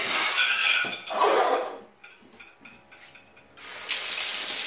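A couple of short rubbing, scraping handling noises. Then, about three and a half seconds in, water starts running through the washbasin's opened drain pipe: a steady splashing hiss of water pouring out of the bare drain tailpiece with the stopper removed.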